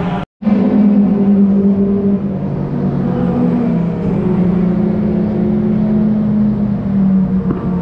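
Race car engines running with a steady drone, which cuts out for a moment about a third of a second in.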